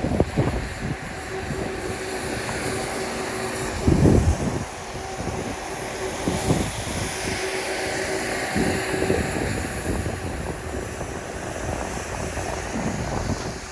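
Wind rushing over the microphone during a downhill ski run, with the skis sliding over snow underneath; a few heavier buffets, the strongest about four seconds in.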